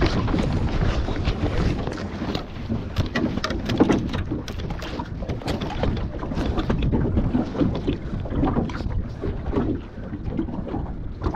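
Wind buffeting the microphone in a steady low rumble, with scattered clicks and knocks of handling.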